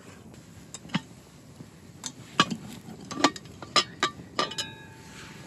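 Cooking utensils and kitchenware clinking and knocking, about seven sharp separate strikes. The last one, near the end, rings briefly.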